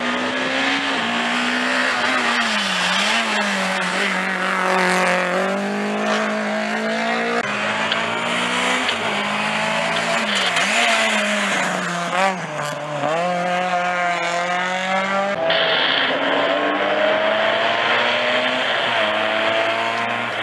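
Racing cars' engines revving hard at high revs, the pitch repeatedly dropping and climbing again as the drivers lift and shift on the slalom course. Three different cars follow one another, with abrupt cuts about a third and two thirds of the way through.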